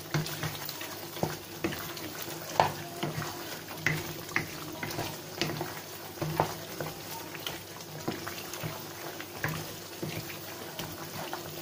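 Wooden spatula stirring mutton curry in a sizzling non-stick wok, knocking against the pan about once a second over a steady frying hiss. The meat is at the final bhuna stage, frying in its own released oil with no water added.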